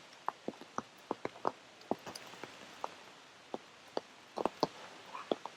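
Scattered raindrops tapping irregularly close by, a few sharp taps a second, over a faint hiss of light rain.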